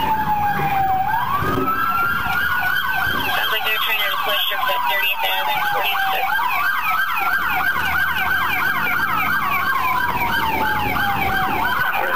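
Police car sirens, one wailing slowly up and down while another yelps in rapid sweeps at the same time.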